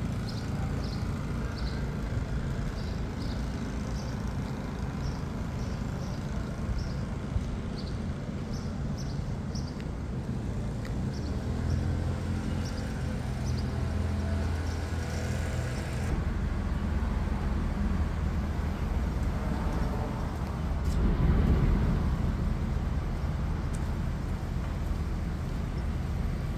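Outdoor street ambience: a steady low engine hum of traffic and running motors, with short high chirps through the first half. A vehicle swells louder as it passes about 21 seconds in.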